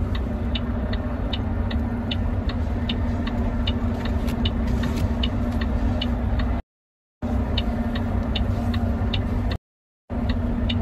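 Semi-truck diesel engine idling, heard from inside the cab, with a dashboard flasher clicking evenly about twice a second. The sound cuts out completely twice, briefly, in the second half.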